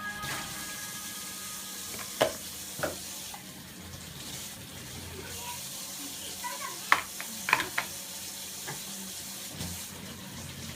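Kitchen cooking sounds: a steady hiss under about six sharp clinks and knocks of utensils or dishes, the loudest about two seconds in and again about seven seconds in.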